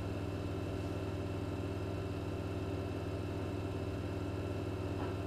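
Oven running at 180 °C with a steady low hum.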